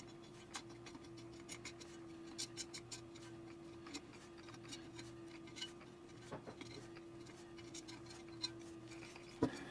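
Utility knife blade scraping old foam surround and glue off a woofer's frame: faint, irregular scratches and ticks, over a steady hum.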